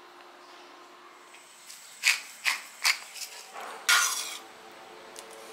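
Utensils clinking on cookware three quick times, followed by a few lighter ticks and then a short, louder scraping swish about four seconds in as a metal ladle moves in a pot of soup.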